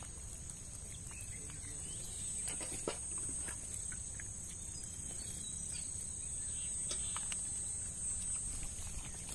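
Crickets or other insects chirring in a steady, high-pitched drone, over a low rumble, with a few light clicks and taps scattered through.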